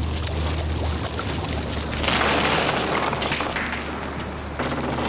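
Dramatised sound of the wooden sailing ship Endeavour's hull striking and grinding on a coral reef: a loud, continuous crashing rumble over a steady low drone, surging again about two seconds in and near the end.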